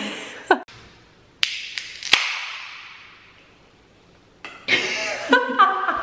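A drink can being opened: a couple of sharp clicks from the pull tab, then a pop and a fizz of carbonation that fades away. Laughter and voices come in near the end.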